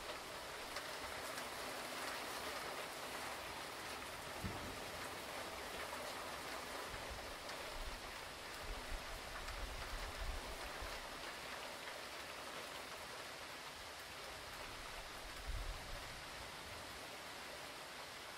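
Steady rain falling during a hurricane, an even hiss, with a few brief low thumps; the strongest comes near the end.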